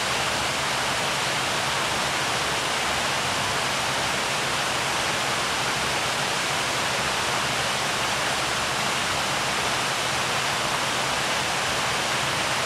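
Buckingham Fountain's many water jets spraying and splashing into its basin: a steady rush of falling water.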